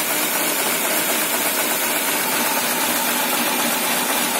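Peugeot 206 1.1 petrol four-cylinder idling cold, not cleanly, as if it is choking. This is the cold-idle fault that causes its stalling and loss of power, which the owner puts partly down to a failing MAP (intake air pressure) sensor.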